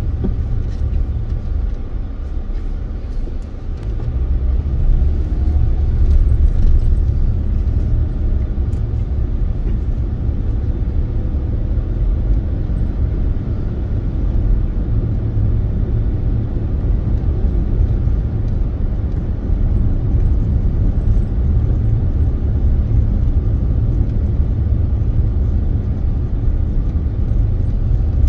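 Steady low rumble of a car driving slowly, engine and road noise heard from inside or close by, with a faint rising engine note about five seconds in.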